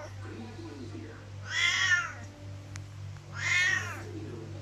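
Siamese cat meowing loudly twice, two drawn-out calls about two seconds apart, each rising and then falling in pitch: demanding to be let out of the room.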